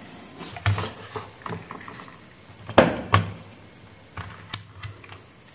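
Handling of a handheld digital multimeter and its test leads: scattered light clicks and taps, including the turning of the Fluke meter's rotary selector switch.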